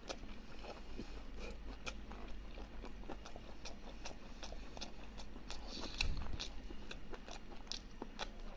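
Close-miked mukbang eating sounds: someone chewing boiled lamb kidney, with irregular wet mouth clicks and smacks.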